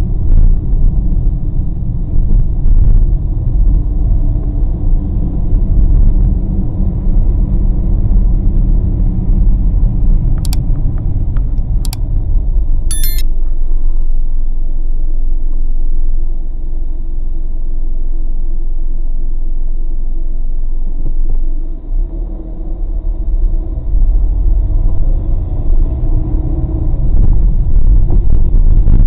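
Steady low rumble of a car driving on a wet road, heard from inside the cabin, easing off through the middle while the car sits at a light and building again as it pulls away. A few short clicks and a chime cut in about ten to thirteen seconds in.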